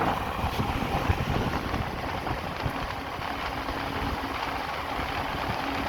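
Nissan electric radiator cooling fan running on its high-speed wiring, a steady rush of air with a faint hum. It is fed from a 10-amp charger, which is too little for it to reach full speed.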